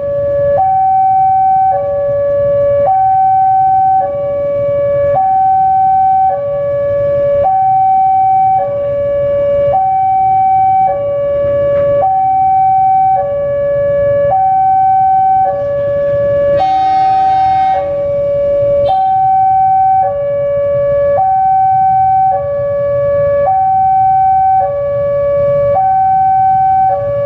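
Railway level-crossing warning alarm sounding steadily, alternating between a low and a high tone about once a second, signalling that a train is approaching. A short horn blast from the approaching diesel locomotive cuts in about 17 seconds in, over a low rumble.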